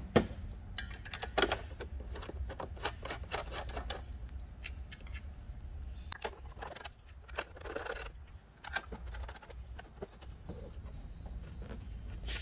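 Scattered small metallic clicks and knocks as an aluminum mounting plate and its bolts are handled and fitted against the back of a TV, the sharpest knock right at the start, with a brief rubbing scrape about eight seconds in.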